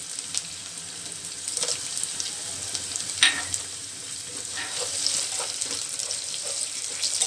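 Chopped onions frying in hot oil in a karahi, a steady sizzle, with a spoon scraping and stirring the pan a few times.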